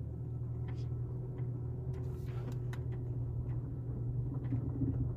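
Car engine running, heard from inside the cabin as a steady low hum, with a few scattered light ticks.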